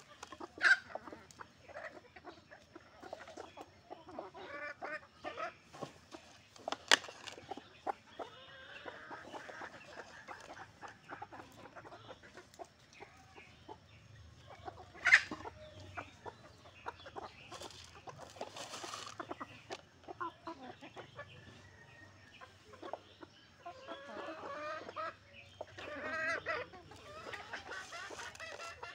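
A flock of chickens clucking and calling repeatedly as they forage. Three sharp clicks stand out above the clucking, the loudest about a second in, around seven seconds in, and midway through.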